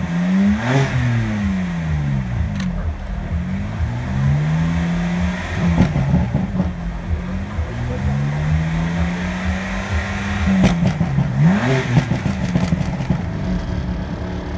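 A car engine being free-revved while parked: the revs climb and fall in several blips and are held high for a few seconds, with a few sharp cracks. It settles back to a steady idle near the end.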